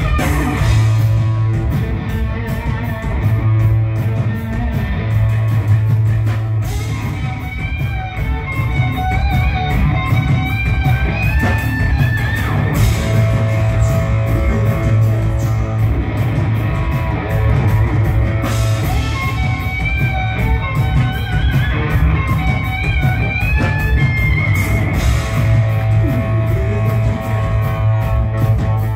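Live rock band playing: electric guitar over bass guitar and drum kit, loud and steady throughout.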